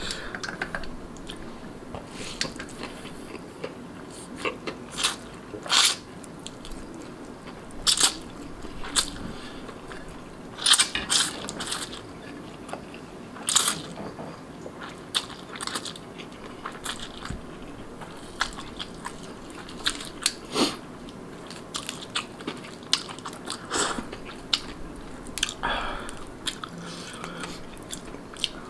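Close-miked eating: slurping and chewing instant noodles and marinated rabbit meat, with wet mouth smacks and sharp clicks at irregular intervals.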